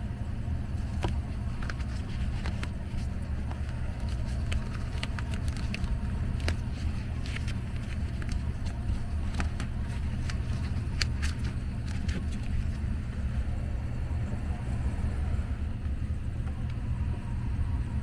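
Steady low hum of a running HVAC air handler, with scattered light clicks and taps from hands working on the copper suction line and its insulation.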